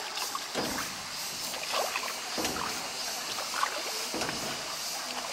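Small rowed boat moving along a calm river: the oars swish and dip through the water every second or two over a steady high hiss.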